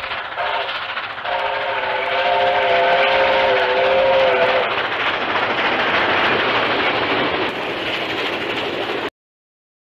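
A train sounding a chord whistle: the chord breaks off briefly about a second in, then sounds again in a long blast that ends about four and a half seconds in. The noise of the train running follows and cuts off abruptly near the end.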